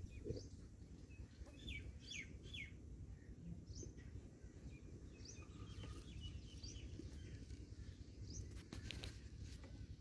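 Hatching chicken chick peeping faintly from inside its cracked egg: short falling cheeps, a quick run of three about two seconds in and more scattered through, over low steady background noise.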